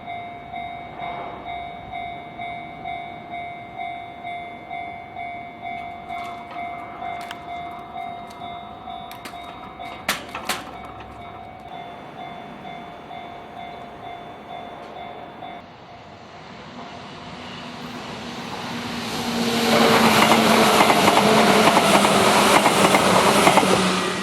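Japanese level-crossing warning bell ringing in a steady electronic clang, about one and a half to two strikes a second, until it stops about two-thirds of the way through; two sharp clicks come near the middle. Then an electric commuter train approaches and passes close by, loud, with its wheels rattling over the rails.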